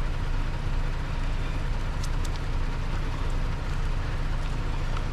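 Steady low mechanical hum, like a running engine, with a few faint clicks about two seconds in.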